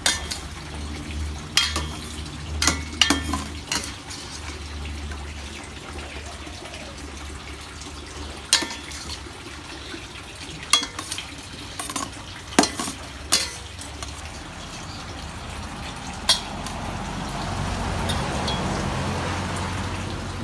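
Metal tongs and a spoon clinking and scraping against a stainless steel mixing bowl as a wet glass-noodle salad is tossed and served, with scattered sharp clinks over soft, wet stirring.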